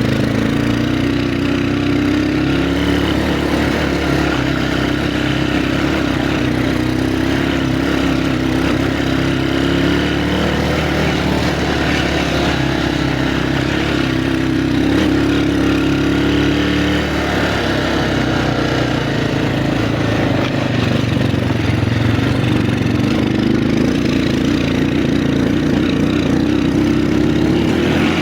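Vehicle engine running steadily under load, its pitch rising and falling every few seconds as the revs change, over a constant noisy rumble of the drive.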